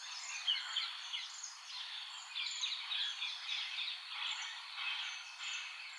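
Faint chatter of many small birds, short chirps and tweets overlapping, over a light background hiss.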